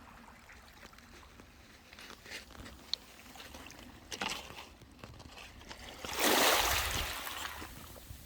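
Seawater sloshing, with a few faint clicks and one louder rush of water, like a wave washing in, about six seconds in that dies away over a second or so.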